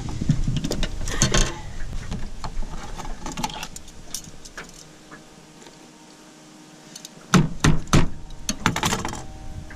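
Handling noise while unhooking a zander in a landing net: metal unhooking pliers clicking and rattling, then three sharp knocks about seven and a half seconds in and a few more clicks near the end.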